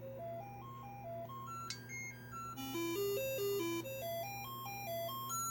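Commodore 64's SID sound chip playing the diagnostic cartridge's test tones: short beeping notes stepping up a scale and back down, the run repeating about every three seconds with higher notes sounding alongside, over a steady low hum. The tones show the SID chip is working.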